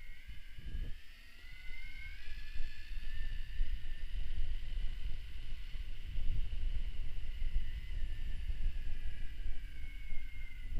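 Electric mountain bike motor whining. Its pitch rises over the first couple of seconds as the bike speeds up, holds steady, then drops a little near the end, over a low, uneven rumble.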